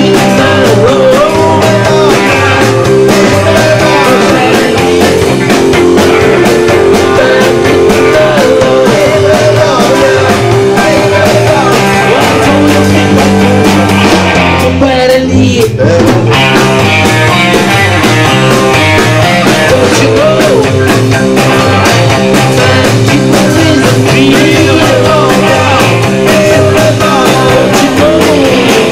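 Live rock band playing loudly: electric guitars and a drum kit, with sung vocals.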